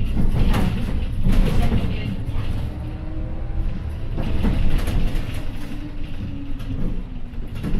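City bus driving along, heard from inside the cabin: a steady low engine and road rumble with a few short knocks and rattles.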